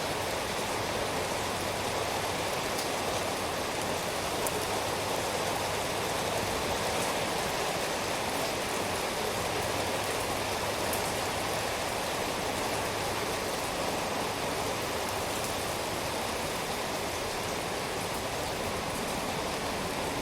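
Steady rain falling, an even hiss of many drops with a few faint individual drop ticks.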